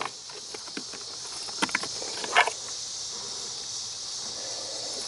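Plastic wiring connector on a Chevrolet Impala Limited's HVAC recirculation door actuator being worked loose by hand: a run of small plastic clicks, with louder clicks about one and a half and two and a half seconds in, over a steady high hiss.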